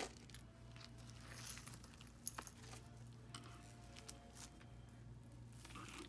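Faint scattered clicks and light clinks of costume jewelry being handled, beads and small metal pieces tapping together, with one sharper click about two seconds in, over a low steady hum.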